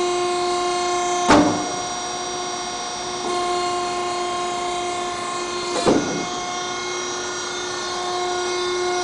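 Hydraulic power unit of a Birmingham VH-series hydraulic sheet-metal folding machine running with a steady whine. Two sharp clunks come from the machine, about a second in and again near six seconds in.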